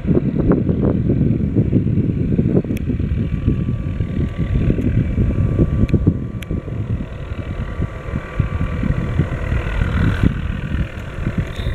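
MD 520N NOTAR helicopter hovering at a distance: a steady low rotor and turbine rumble with a faint high whine, buffeted by wind on the microphone.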